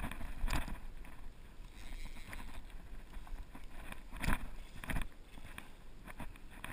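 Wind rumbling on the microphone over flowing river water, broken by a few short sharp knocks, the loudest about four seconds in.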